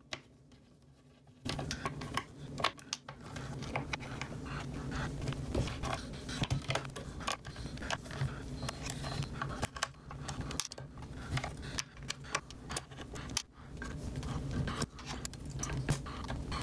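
Small screws being undone from a graphics card with a small Phillips screwdriver: repeated small clicks, scrapes and metallic clinks of the driver and screws, starting about a second and a half in, over a low steady hum.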